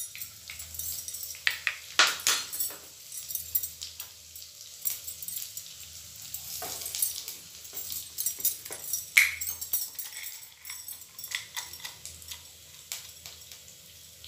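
Cumin seeds crackling in hot desi ghee: irregular sharp pops over a faint sizzle, the tempering (tadka) stage when the ghee is hot enough to make the seeds splutter.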